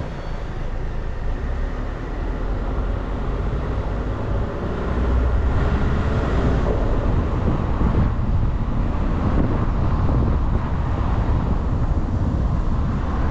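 A bus on the move: steady engine and road noise, growing louder about five seconds in.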